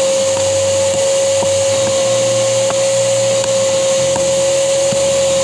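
Loud, steady motor-driven machine running, with one constant whining tone over a hiss. A few faint taps sound now and then.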